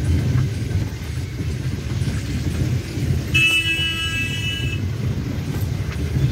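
Low cabin rumble of a Suzuki hatchback driving on a rough mountain road, with a car horn honking once, held for about a second and a half midway through.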